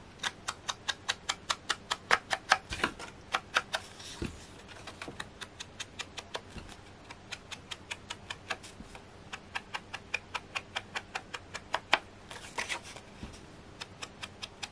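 Ink dauber dabbed quickly along the edge of embossed cardstock: a crunchy tapping, about five dabs a second, with short pauses and softer stretches.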